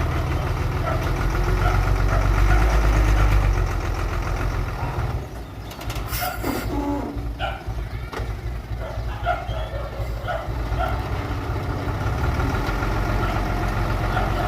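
Heavy diesel engine of earthmoving machinery running, working hardest in the first few seconds, then easing off about five seconds in. A brief hiss comes about six seconds in, followed by a short falling tone, before the engine settles back to a steady run.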